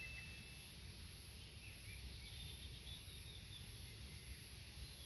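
A bell-like ding rings out and fades in the first half-second. After that there is only faint outdoor background with a few faint, high bird chirps.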